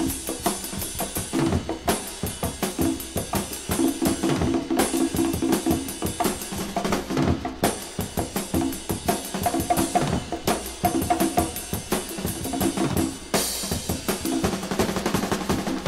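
Band music playing from a vinyl LP on a turntable, driven by a busy drum kit with rapid snare and bass-drum hits over sustained instrument notes.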